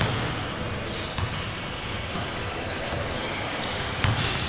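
Basketball bouncing on a gym court floor: a few scattered bounces, the loudest about four seconds in, echoing in a large gym.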